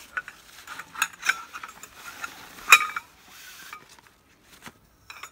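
Sections of a wood-and-metal lantern pole clinking and knocking together as they are handled and taken out of a fabric carry bag, amid rustling of the bag. The loudest clink, with a short ring, comes nearly three seconds in; after that only a few faint clicks.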